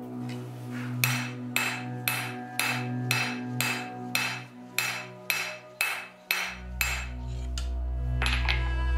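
Hand hammer striking a hot bar of K390 steel on an anvil in hand forging: a steady run of ringing blows at about two a second, starting about a second in, over background music.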